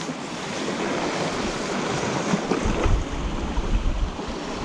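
Sea waves washing against rocks, with wind buffeting the microphone; the gusts hit hardest from a little past halfway until near the end.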